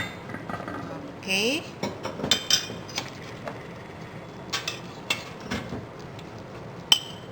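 Metal utensils clinking against a pot and dishes: a string of sharp clinks and knocks, with one loud ringing clink near the end.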